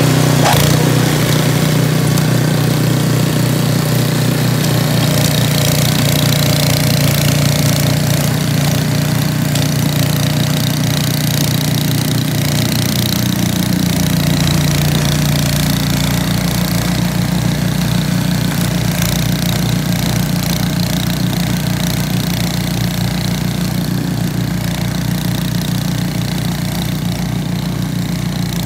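Two-stage gas snow blower's single-cylinder engine running steadily while the machine clears snow, growing slightly fainter as it moves off along the cleared path.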